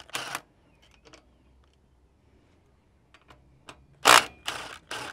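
Makita 18V cordless impact driver running in the spindle bolts in short trigger bursts: one brief burst at the start, a few light clicks, then about four seconds in a quick run of bursts about three a second.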